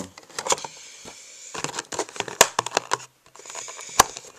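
Packaging crinkling and rustling as a puzzle is handled out of its box, with scattered clicks, two of them sharp and loud about two and a half and four seconds in.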